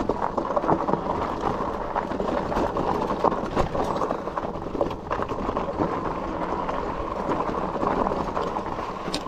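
Fat tyres of an electric bike rolling over a rocky dirt trail, with gravel crunching and steady small knocks and rattles as the bike runs over bumps.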